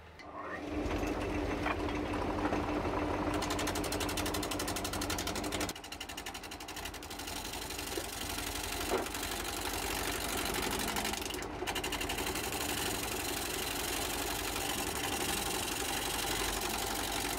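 A wood lathe switched on about half a second in, its motor humming as it spins up. Then a turning gouge cuts into the spinning cherry bowl blank: a continuous rasping with fast, regular ticking.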